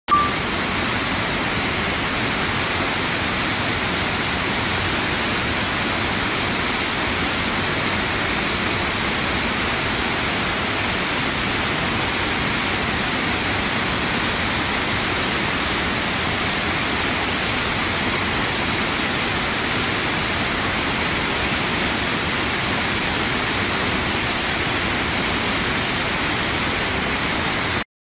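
Waterfall running: a steady, even rush of falling water, with a brief click at the very start, cutting off abruptly at the end.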